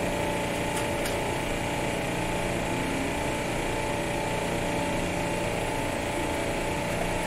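Steady mechanical hum of running machinery, with several steady tones over a constant whir and no change in level.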